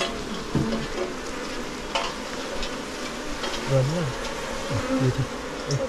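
Himalayan honeybees buzzing around an opened colony, with wavering passes as bees fly close, over a steady crackly hiss with scattered clicks.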